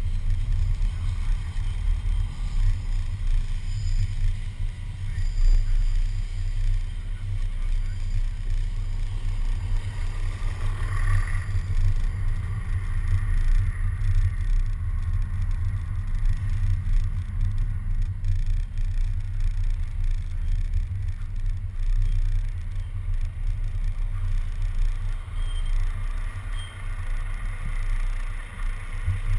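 Wind buffeting and road rumble on a camera mounted outside on the front of a moving bus: a steady low rumble that wavers constantly.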